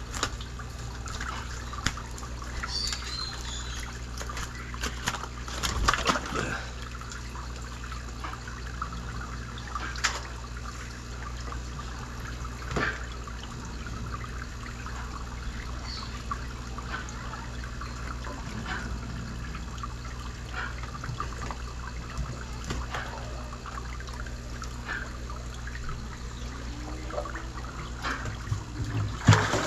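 Water trickling steadily over a steady low hum, with a few sharp splashes, the loudest about six seconds in and near the end.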